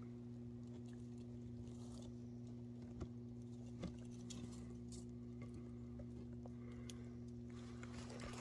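A faint, steady low hum, with a few light ticks and rustles about three and four seconds in.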